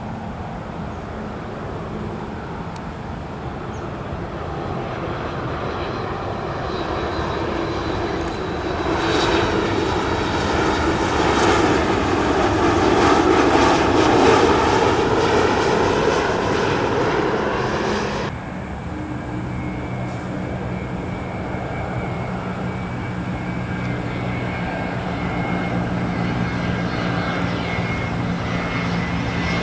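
Boeing 737 MAX 8 jet engines going by, the roar swelling to a peak in the middle and easing off. About two-thirds of the way through it cuts abruptly to a second jet, a Boeing 737-300 freighter: a steadier, quieter engine hum with a thin high whine.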